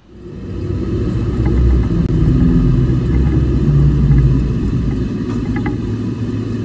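Sinker EDM machine running with its work tank full of dielectric fluid: a steady low rumble that starts suddenly and stays loud.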